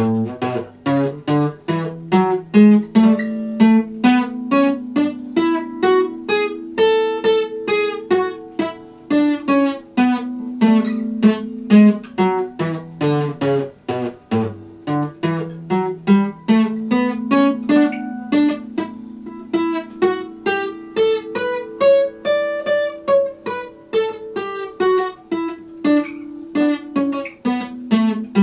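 Epiphone acoustic guitar played solo: a melody picked note by note, a couple of notes a second, over bass notes that ring on beneath it.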